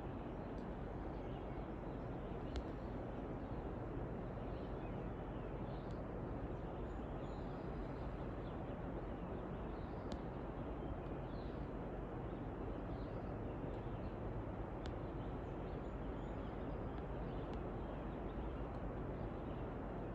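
Outdoor ambience: a steady background rush with faint, scattered bird chirps, and a few sharp clicks.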